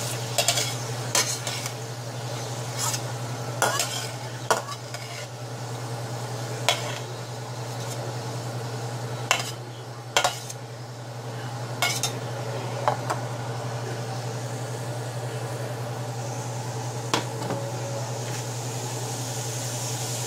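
Metal spatula scraping and clinking against a stainless steel frying pan as vegetables are lifted out, with the oil sizzling in the pan. Irregular sharp clinks, most of them in the first half, over a steady low hum.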